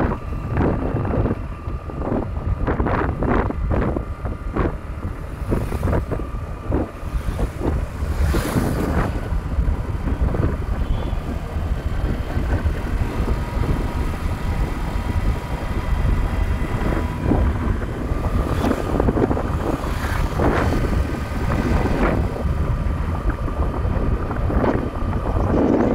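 Motorcycle running on the move, with heavy wind buffeting the microphone and a steady engine tone underneath, broken by frequent short jolts.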